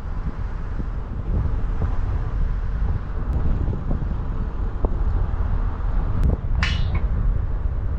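Wind buffeting the microphone over the rumble of a moving vehicle, with a short high-pitched squeak that sweeps downward near the end.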